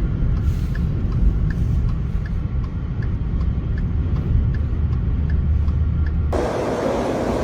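Low, steady rumble of a vehicle driving, with a faint tick repeating about every three-quarters of a second. Near the end it cuts abruptly to a louder, steady rushing noise.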